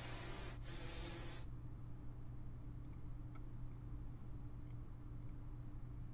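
A steady low hum with a hiss over it that cuts off about a second and a half in, followed by a few faint clicks.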